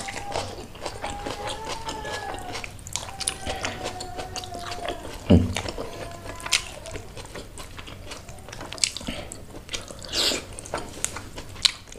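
Close-miked chewing and biting of fish head, rice and a fresh red chili eaten by hand, with wet smacking and crunching. A single loud thump about five seconds in.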